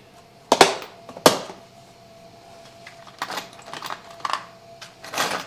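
Small metal hardware clattering and clicking as someone rummages for washers: two sharp clacks about half a second and a second and a quarter in, then a run of lighter rattles and clicks from about three seconds on.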